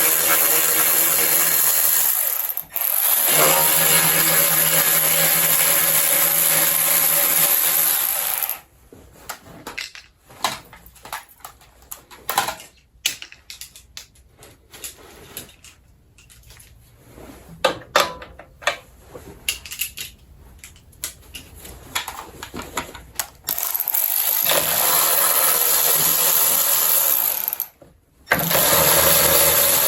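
Handheld power driver running in long bursts with a steady hum, backing out the 8 mm bolts on a snowblower engine's cover. Between the bursts, a stretch of clinks and knocks from handling tools and parts.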